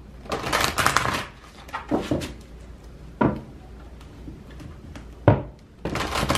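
A large deck of Spirit Animal Totem oracle cards being shuffled by hand: bursts of cards riffling and slapping together. There are two short sharp knocks in between, at about three and five seconds.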